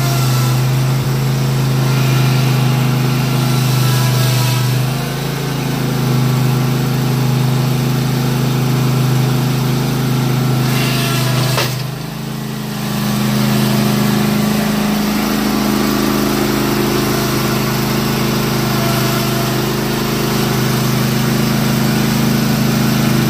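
Toro TimeCutter zero-turn riding mower's engine running steadily as the mower is driven up loading ramps into a pickup bed. The engine note dips briefly twice, about five and twelve seconds in, and shifts in pitch as the load changes.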